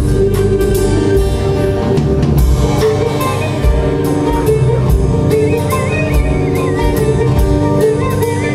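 Live band playing an instrumental passage: drum kit and bass under a mandolin's plucked melody. A high wavering melody line comes in about halfway through.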